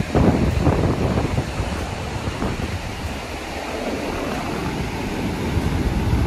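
Ocean surf washing in, with wind gusting against the microphone in irregular low rumbles.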